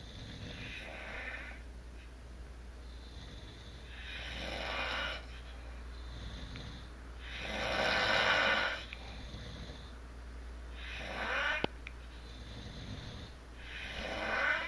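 People snoring in their sleep: five snores, one about every three to three and a half seconds, the loudest about eight seconds in, with fainter breaths between them.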